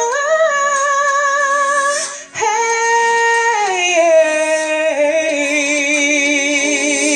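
A woman sings long held notes with vibrato into a microphone. After a short break about two seconds in, she takes a higher note, then slides down about a second later to a lower note that she holds with wavering vibrato.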